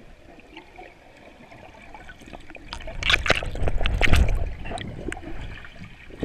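Water sloshing and bubbling, heard underwater through an action camera's housing. About three seconds in it swells into a louder deep rumble with a cluster of knocks and clatters, as the snorkeller's hand and body move right against the camera, then dies back down.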